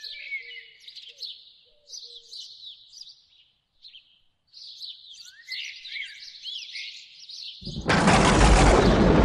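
Small birds chirping and twittering in short repeated phrases, with a lower repeated call underneath in the first couple of seconds. About seven and a half seconds in, a sudden loud crash of thunder breaks in and rumbles on, drowning the birds.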